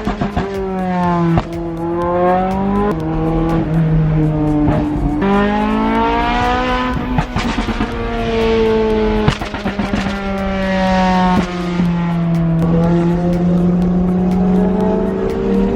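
Sports car engine running hard under acceleration, its pitch climbing and then stepping down at several gear changes.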